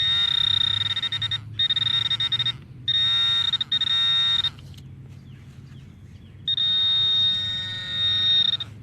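Metal detector giving a steady high electronic tone over a buried target. It sounds in five bursts of about a second or less, then one longer tone of about two seconds near the end.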